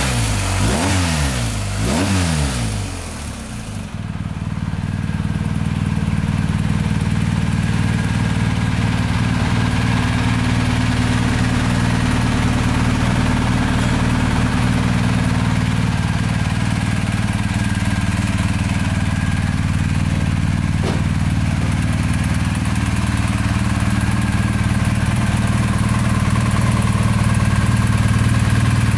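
BMW R1250GS Rallye TE's 1254 cc boxer twin blipped twice, revs rising and falling, then settling into a steady idle.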